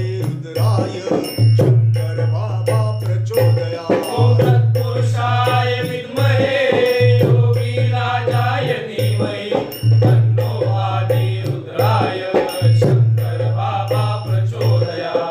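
Devotional mantra singing with musical accompaniment: a voice chanting the melody over shaker-like rattle percussion and a low bass note repeating in blocks of about a second.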